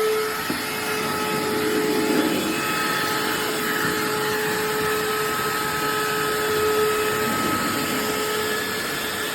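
Cordless handheld vacuum cleaner running steadily: a constant motor whine over the rush of air.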